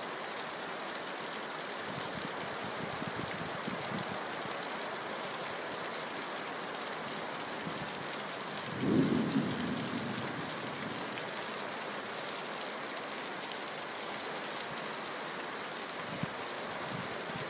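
Heavy rain falling steadily during a thunderstorm, with one clap of thunder about halfway through that rumbles on for a second or two before fading.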